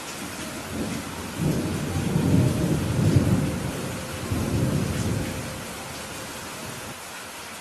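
Steady rain with a roll of thunder that rumbles in about a second in, swells loudest a couple of seconds later, and dies away after about five seconds, leaving the rain alone.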